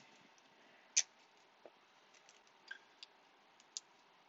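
A few faint, sharp clicks and light taps of trading cards being handled and flipped through, the sharpest about a second in.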